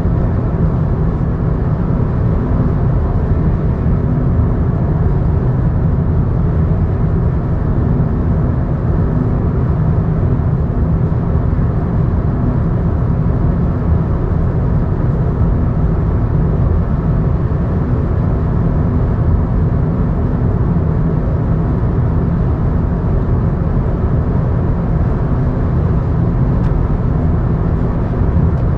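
Steady engine and road noise of a vehicle travelling at constant speed, with a deep hum that does not change.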